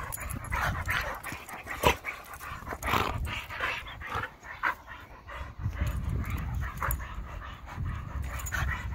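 Two dogs play-fighting, making short vocal sounds in irregular bursts as they wrestle and mouth at each other. A low rumble joins in during the second half.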